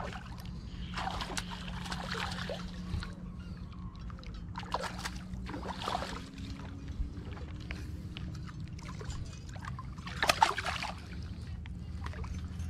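Water splashing in short bursts as a hooked bass thrashes at the surface, the loudest splash about ten seconds in, over a steady rumble of wind on the microphone.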